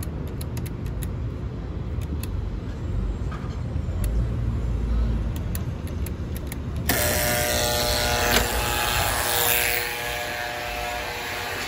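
Steady low rumble of city street traffic, with a few light clicks. About seven seconds in, a sudden louder rush of noise with a buzzing hum joins it for a few seconds, then eases off.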